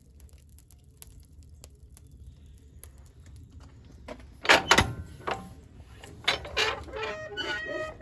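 A low rumble, then a loud clunk about four and a half seconds in, followed by several lighter knocks and a brief squeak near the end.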